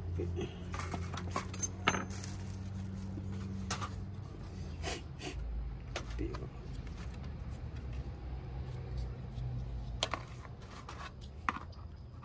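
Scattered clicks and light clatter of a deep fryer's metal basket, plastic lid and packaging being handled, over a low steady hum.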